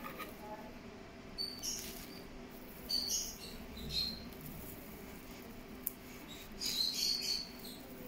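Dry millet sprays and a plastic bag liner rustling and crackling as hands stuff millet into a small plastic capsule, in several short bursts, the loudest near the end. A single sharp click a little after the middle.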